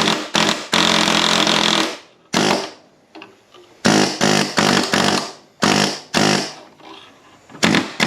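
Pneumatic air chisel hammering in repeated short bursts, with one longer run of about a second, chipping seam sealer and rusted sheet steel out of a car's footwell.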